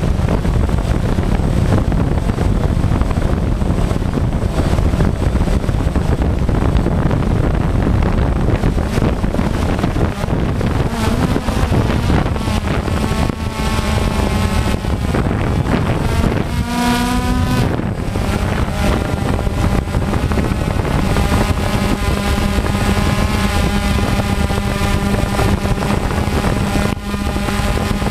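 DJI Phantom quadcopter's motors and propellers, heard through the GoPro mounted on it, with heavy wind rumble on the microphone. From about eleven seconds in, a steady propeller whine comes through above the wind, wavering in pitch for a couple of seconds past the middle as the drone manoeuvres.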